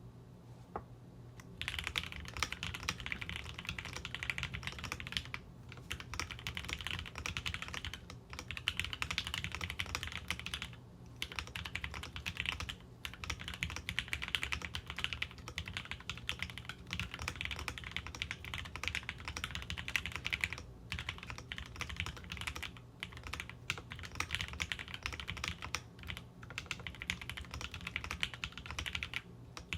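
Steady typing on a QK Alice Duo mechanical keyboard with lubed and filmed Gateron Blue Bubblegum switches in a polycarbonate plate, fast runs of keystrokes with short pauses. The typing starts about a second and a half in.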